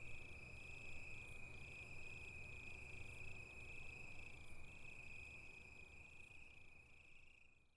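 Faint insect chorus: a steady high trill with a pulsing chirp about twice a second, fading away at the end.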